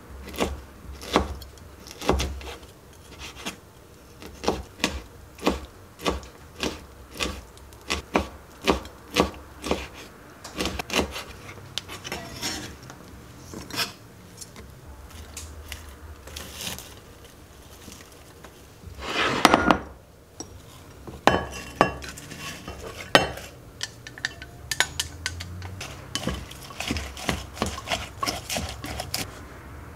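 A kitchen knife slices wine-soaked dried figs on a plastic cutting board, its blade knocking the board about once or twice a second. About two-thirds through there is a louder scrape lasting about a second. After that, lighter quick clicks come from wooden chopsticks against a glass measuring cup as shredded cabbage is mixed.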